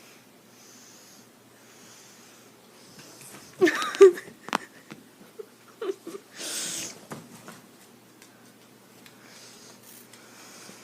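Cat hissing: a short pitched growling cry about four seconds in, then a strong sharp hiss lasting under a second, with fainter breathy hisses before and after.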